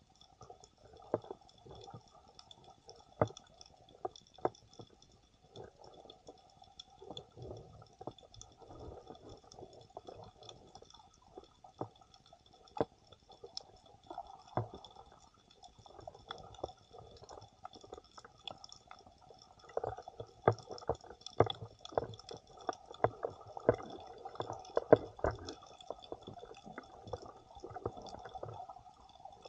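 Underwater sound heard through a submerged camera: muffled water movement with many scattered sharp clicks and knocks, busier and louder from about two-thirds of the way in, over a faint steady high tone.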